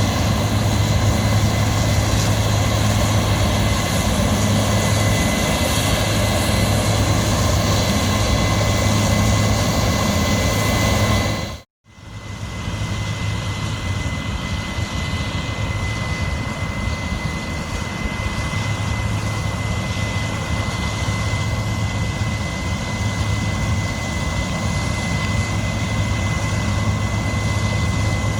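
Steady engine and machinery noise. It drops out for a moment about twelve seconds in and comes back with less low hum and a steady high whine standing out.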